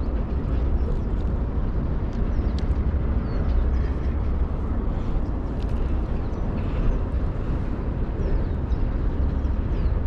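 Steady outdoor ambience at the shore: a continuous low rumble and wash of noise, with a few faint high chirps over it.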